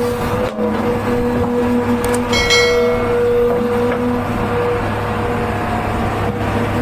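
Heavy diesel earthmoving machinery running steadily, with a brief high metallic squeal about two and a half seconds in.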